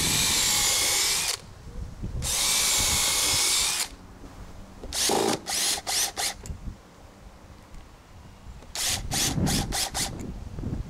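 Cordless drill boring pilot holes into dry pressure-treated pine, a steady whine in two long runs, then several short bursts on the trigger.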